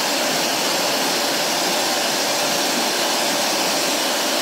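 Roidmi Miro high-speed hair dryer blowing steadily on its highest speed, a constant rush of air with a high fan whine, while it cycles between hot and cold air.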